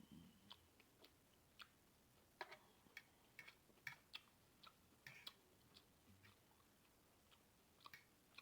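Faint chewing: soft, irregular mouth clicks and smacks of someone eating.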